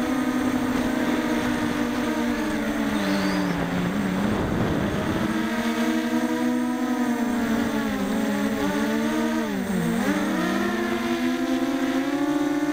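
Quadcopter's four Emax 2204 2300kv brushless motors spinning 6045 propellers, a steady whine picked up by the onboard camera. The pitch sags about four to five seconds in with a rush of air, dips sharply and climbs back near ten seconds as the throttle is cut and reapplied, and rises slightly near the end.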